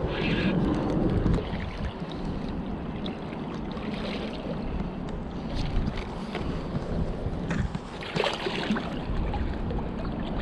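Wind buffeting the microphone over the wash of river water, with brief rushes of hiss about four and eight seconds in.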